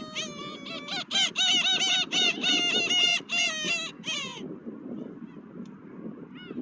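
Gulls calling: a drawn-out note, then a rapid run of loud, repeated cries about three to four a second, from about a second in until near the middle. Steady wind and surf noise runs underneath.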